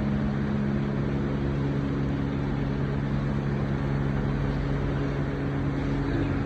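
All-in-one 250-litre water-cycle heat pump running under test: a steady machine hum made of several low tones over a light even noise, with no change in level.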